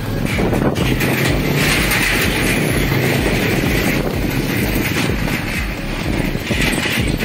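Motorcycle riding across a suspension bridge's slatted steel deck: the engine running and the metal deck rattling under the wheels, with wind noise on the microphone.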